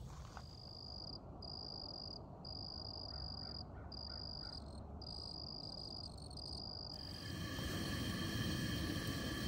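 A night chorus: a steady, high-pitched trill from calling insects or frogs, broken by short gaps every second or so. About seven seconds in it gives way to a louder, steady hiss.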